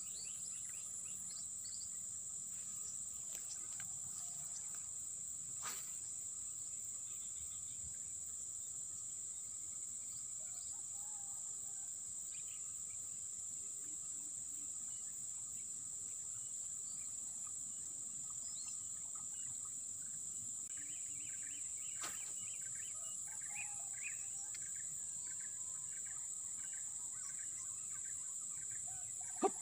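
Steady high-pitched buzz of insects, with a few faint bird chirps in the last several seconds and two soft clicks.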